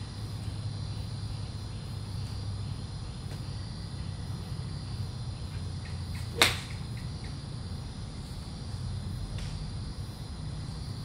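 A golf club strikes a ball off a driving-range mat once, a single sharp crack about six seconds in, over a steady low hum.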